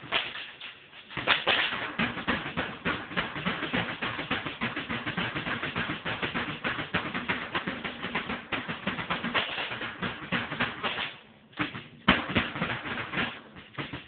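A drum kit played fast, with rapid stick hits on the snare and toms. There are short breaks just after the start and about eleven and a half seconds in.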